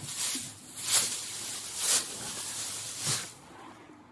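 Rustling and scraping of packaging as a portable petrol generator is lifted out of its box, in several swells about a second apart that die down near the end.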